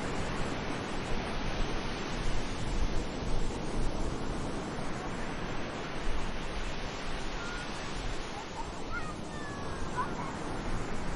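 Sea waves washing onto a beach, a steady rushing surf that swells and eases, with a few faint high calls between about eight and ten seconds in.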